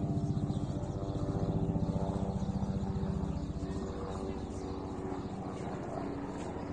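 A motor engine running with a rapid, even pulse, louder in the first half and easing off after about three seconds.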